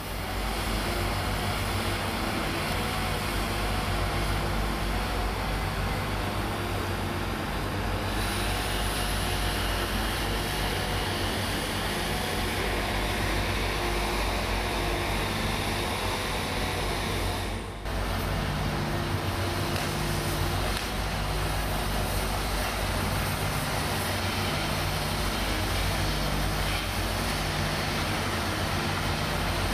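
Mobile crane's diesel engine running steadily under a broad hiss, with a brief drop about eighteen seconds in.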